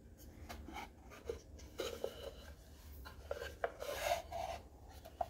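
A small walnut box being handled and turned over in the hands, giving faint rubbing and scattered light knocks and clicks of hands and fingers on the wood.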